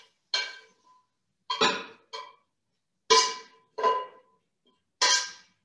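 Utensil knocking and scraping against a stainless steel frying pan as cooked turkey is scraped out of it onto a plate: about six short clanks, each with a brief metallic ring.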